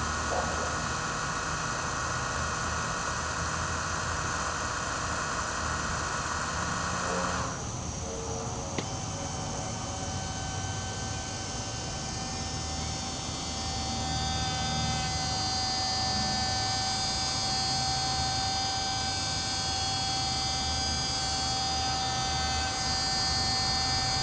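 Small electric motor of a model overhead crane whining steadily as its hoist lowers a barrel on the hook. The whine changes about seven seconds in and settles into a steady, clearer tone.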